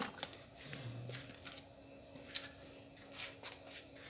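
Quiet background with a steady high-pitched tone and a low steady hum, broken by a few small clicks.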